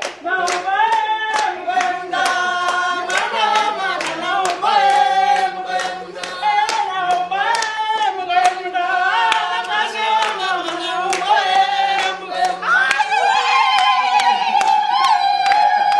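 A small group singing a song together, clapping hands in a steady rhythm to the beat, about two to three claps a second.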